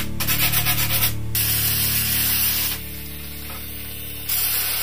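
Electric orbital sander running against a plastic motorcycle tail cowl, a steady abrasive whir that drops quieter for a moment about three seconds in, then picks back up.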